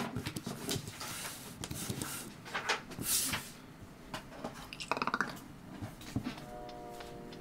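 Scattered small clicks and knocks in a small room, with a short hiss about three seconds in; a few steady musical notes start near the end.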